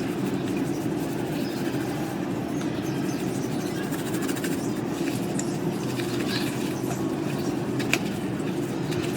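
A steady mechanical rumble, unchanging throughout, with one sharp click about eight seconds in.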